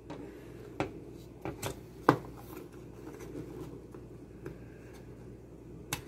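Small plastic clicks and scrapes as a screwdriver tip pries at the retaining clip of a plastic microwave door-switch holder to free a micro switch. There are a few sharp clicks, the loudest about two seconds in, and another click near the end as the switch comes loose.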